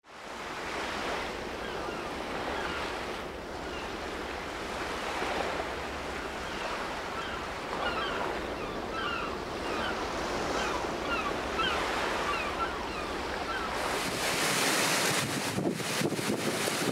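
Wind-driven surf breaking and washing against the shore under strong tropical-storm wind, with a run of short repeated chirps through the middle. About three-quarters of the way in the sound changes to hard, gusting wind buffeting the microphone.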